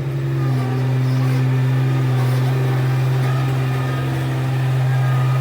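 HAMM road roller's diesel engine running at a steady speed with a constant hum.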